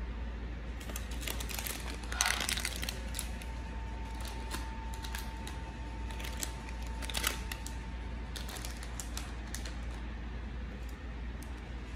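Plastic-wrapped snacks (chocolate bars and a packet of Oreos) being handled and set down on a ribbed tray, with light crinkles and clicks in several short clusters, over a steady low hum.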